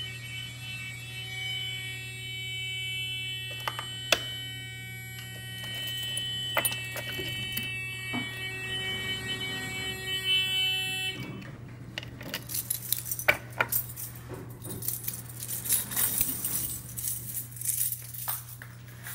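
A steady electronic alert tone with a few clicks, which cuts off suddenly about eleven seconds in as the elevator's fire-service recall is switched off; after that, a bunch of keys on a carabiner jangling.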